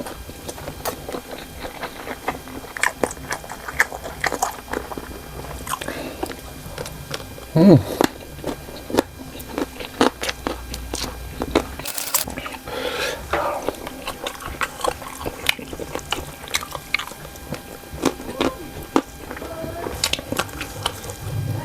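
Close-miked eating: a person biting and chewing cocktail sausages in green chili sauce, with wet mouth clicks and crunches throughout. A short falling voice sound about eight seconds in is the loudest moment.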